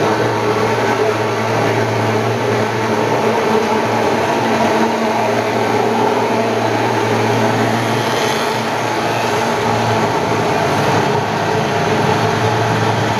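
Thermal fogging machine running steadily, its pulse-jet engine giving a loud, continuous droning hum while it pumps out insecticide fog.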